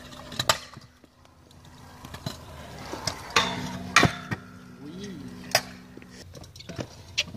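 Stunt scooter wheels and deck knocking on concrete as it is ridden and landed: several sharp knocks, the loudest near the start and about four seconds in.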